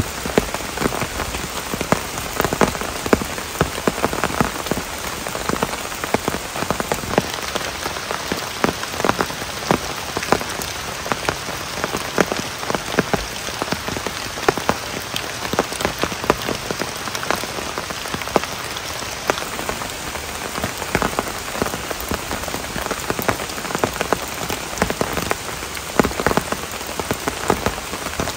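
Steady rain falling, with many close, separate drop hits landing irregularly over a constant hiss.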